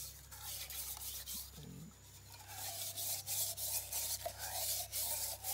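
Wet, coarse sand being scrubbed around inside a metal camp cup to clean it: a gritty scraping in repeated quick strokes.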